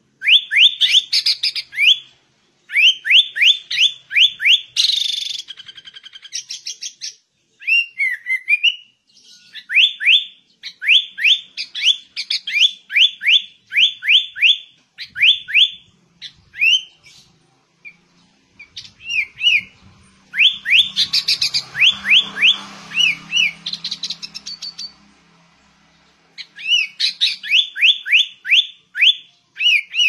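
Sooty-headed bulbul singing: quick runs of rising whistled notes, about four a second, in phrases of one to two seconds broken by short pauses.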